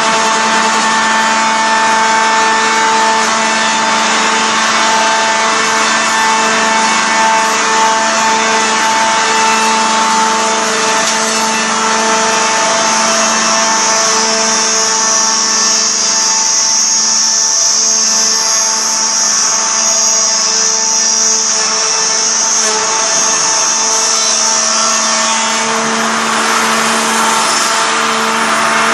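Gulin BM270 twin circular-saw bar-sawing machine running with a steady motor hum. A high whine from the saw blades comes in about halfway through and stops a few seconds before the end.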